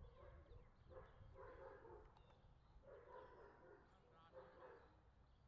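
Faint dog barking in about four short bouts.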